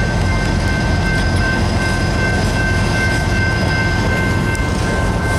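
Autorack freight cars rolling past close by: a steady rumble of steel wheels on rail, with a few thin, steady high-pitched ringing tones above it.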